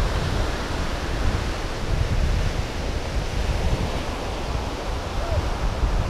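Wind buffeting the microphone in uneven gusts over the steady wash of ocean surf.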